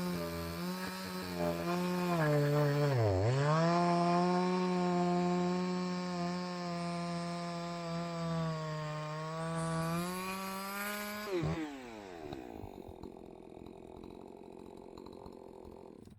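Husqvarna 543 XP two-stroke chainsaw running at high revs, dipping sharply about three seconds in and picking straight back up, then shutting off suddenly near the end and winding down.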